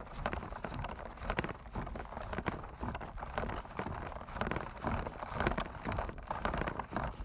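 Footsteps of a person walking through long grass: a run of irregular soft knocks and rustles.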